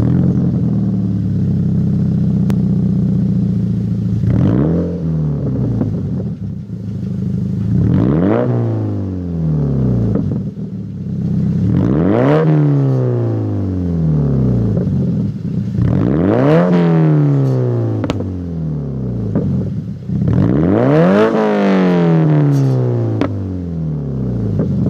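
Scion FR-S's 2.0-litre flat-four, breathing through a Tomei 60R cat-back exhaust with the stock header and front pipe, idling steadily just after start-up. It is then revved about every four seconds: each rev rises quickly in pitch and falls back slowly to idle.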